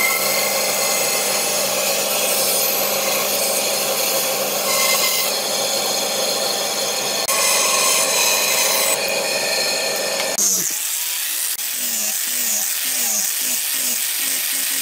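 Band saw cutting through a pine board, a steady loud running noise. About ten seconds in it switches abruptly to an angle grinder with a sanding disc shaping pine, its whine wavering in pitch two to three times a second as it is worked back and forth.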